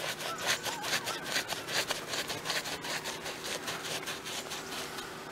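Paintbrush scrubbing bitumen roof coating into gritty mineral roofing felt: quick back-and-forth scratchy strokes, about three or four a second, that die away after about three seconds.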